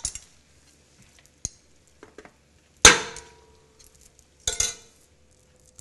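A spoon clanking against a metal pot while serving chili. Light taps and scrapes, then one loud clank about three seconds in that leaves the pot ringing, and a second clatter about a second and a half later.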